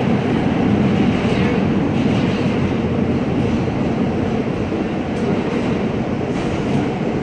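Inside a moving R160A subway car: the steady rumble of the train running on the rails, with a few faint rail clicks in the second half.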